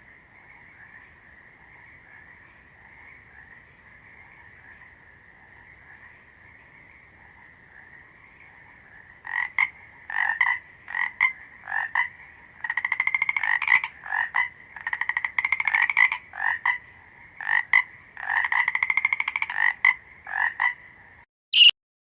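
A steady distant frog chorus, then from about nine seconds in a nearby frog croaking loudly: short single croaks and longer rapidly pulsed calls, repeated. The calling stops near the end, followed by a sharp click.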